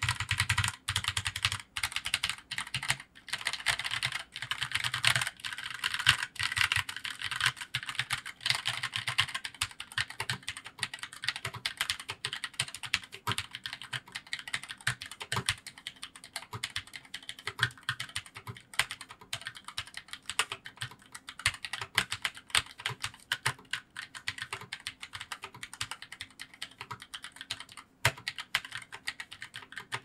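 Typing test on an Armaggeddon SMK-9R low-profile TKL mechanical keyboard fitted with dustproof Autumn Red low-profile switches: a steady run of fast keystroke clicks, louder and denser over the first ten seconds or so.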